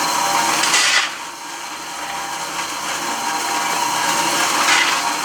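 Electric drive motors and gearboxes of radio-controlled construction models whirring and grinding. One loud burst cuts off sharply about a second in, and another comes near the end.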